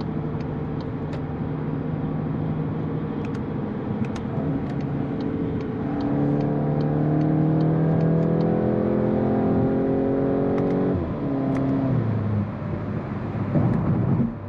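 Volkswagen Golf GTI's 2.0-litre four-cylinder engine heard from inside the cabin, first pulling steadily, then accelerating hard with its note climbing in pitch from a little under halfway through. Two quick dual-clutch upshifts near the end each drop the note sharply.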